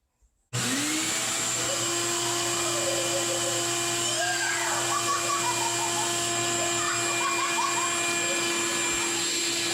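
A wet-dry vacuum switches on about half a second in, its motor spinning up quickly and then running steadily with a whine, used to suck the leftover water out of a toilet. Faint voices sound under it in the middle.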